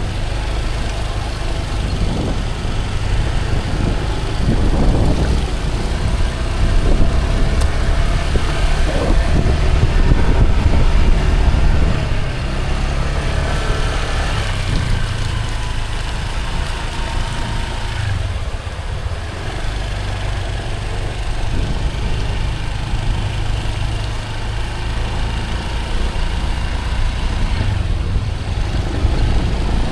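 Motor scooter running on the road while being ridden, with a steady low rumble throughout, a little louder partway through.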